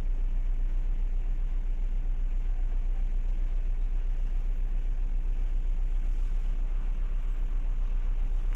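Steady low rumble of a ship's diesel engines heard on board, with a fast, even throb.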